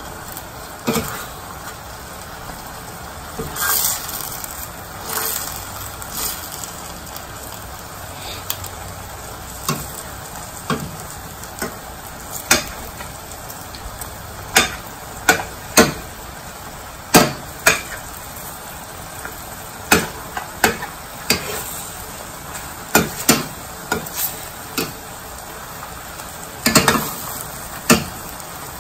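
Chicken pieces sizzling in a stainless steel pan as a metal spoon stirs them. The spoon clinks and scrapes sharply against the pan many times, more often in the second half.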